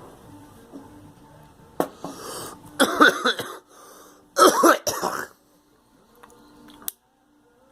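A person coughing hard in two harsh fits, about three seconds in and again a second and a half later, with a sharp click before the first fit and another near the end.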